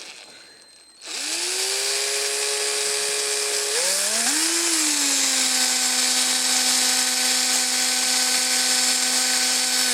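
Small electric drill motor starting up about a second in and running steadily, its pitch shifting briefly around four seconds in, then cutting off at the end.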